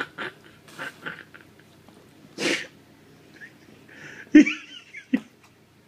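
Baby blowing raspberries with his lips to make fart noises: a few short, separate bursts, the loudest two about midway and about three-quarters through.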